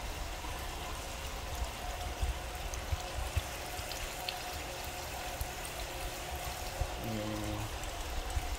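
Water pouring steadily from a hatching jar's outlet spout into a fry trough, a continuous splashing trickle.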